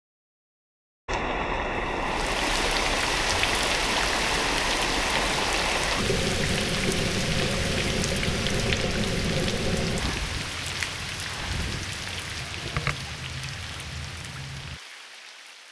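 Rain falling on a river's surface, a dense, even hiss of drops that starts about a second in. Its character shifts twice, at about six and ten seconds, with a few sharper drop ticks late on, and it fades out near the end.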